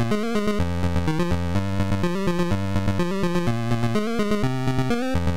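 Electronic music with a quick steady beat over a bass line.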